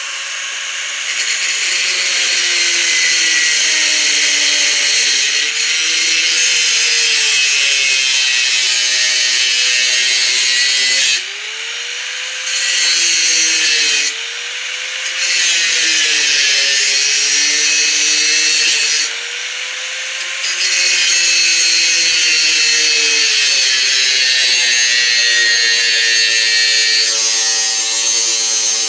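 Angle grinder with a cutting wheel cutting into material, the motor pitch sagging and wavering under load over a constant high-pitched grinding hiss. Three times, about eleven, fourteen and nineteen seconds in, the wheel comes briefly off the work: the grinding drops away and the motor speeds back up.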